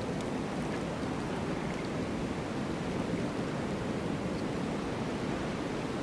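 Blizzard wind blowing in a steady, even rush, with no distinct gusts.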